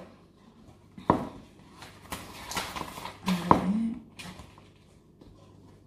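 Handling noises at a table as a paper instruction leaflet is picked up and read: a sharp knock about a second in, paper rustling, a second knock about halfway through, and a brief hummed 'mm' from the reader.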